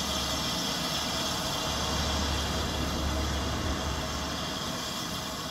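Steam locomotive standing at the platform with steam up: a steady hiss over a low rumble.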